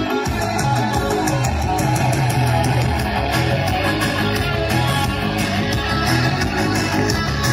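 Music led by guitar with a steady beat.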